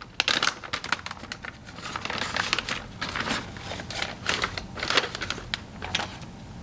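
Plastic zip-lock bag crinkling and crackling as it is handled and opened to unwrap a pistol. There is a run of sharp crackles that grows busier about two seconds in and stops shortly before the end.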